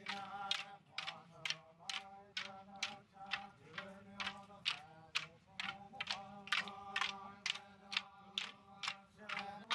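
A group of men chanting in unison while striking wooden sticks together in a kneeling stick dance, the stick clacks falling in an even beat of about two a second.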